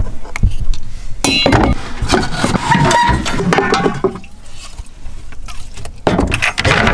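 Irregular clinks, clatter and wooden knocks of cooking gear being handled in small wooden cabinets: a kettle and jars taken out and a butane fuel canister picked up. Quieter for a moment past the middle, then louder rummaging near the end.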